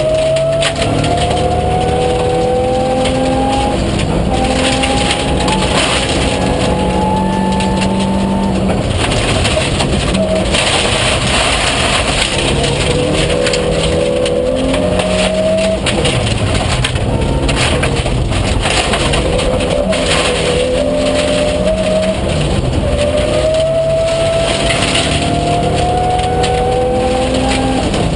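Rally car engine under hard acceleration on a gravel road, heard inside the cabin: its pitch climbs through each gear and drops at each shift, over a steady rush of tyre and gravel noise.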